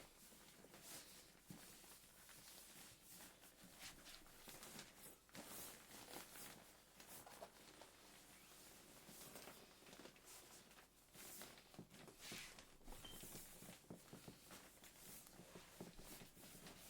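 Faint rustling and crinkling of an inflatable camping mat's fabric as it is rolled up to press the air out, in irregular handling sounds.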